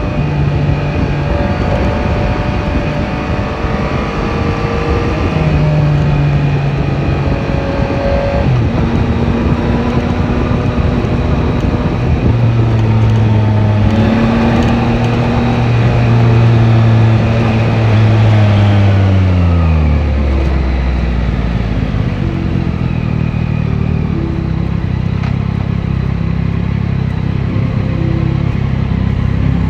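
Yamaha Tracer 9 GT's 890 cc inline three-cylinder engine running on the road with wind noise over it, its pitch stepping up and down through the gears. A little past halfway the revs fall away steadily as the bike slows, then settle into a low, steady run.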